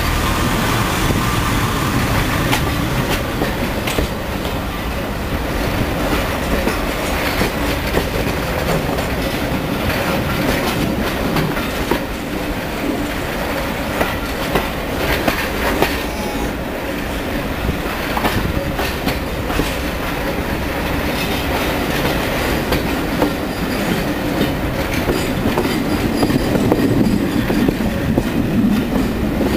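Carriages of a train hauled by the LNER V2 steam locomotive 4771 Green Arrow, running along heard from an open carriage window. Steady rumbling run with repeated clicks of the wheels over rail joints and pointwork.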